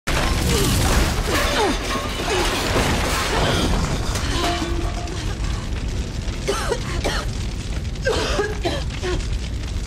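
A large fire burning: a steady rushing noise full of crackles and pops over a low rumble.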